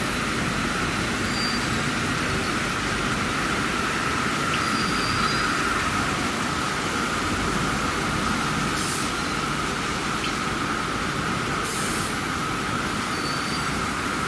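Steady running noise of factory machinery, such as an automatic glass loading and unloading line, with a constant whine-like band. Two short hisses cut in, about 9 and 12 seconds in.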